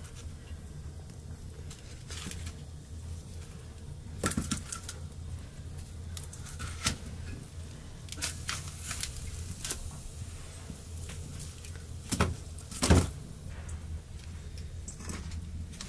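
Scattered light knocks and clicks, a few at a time, the loudest about thirteen seconds in, over a low steady hum.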